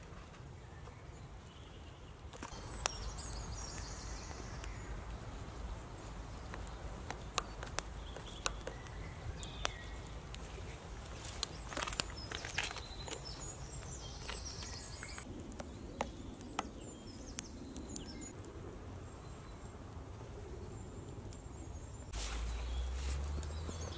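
Campfire crackling under a steaming pot on a grill: scattered sharp crackles over a low steady rumble, with faint bird chirps now and then.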